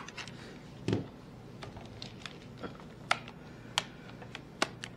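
Light plastic clicks and taps of a camcorder's flip-out LCD screen being swung and tilted on its hinge, about half a dozen scattered clicks with a soft knock about a second in.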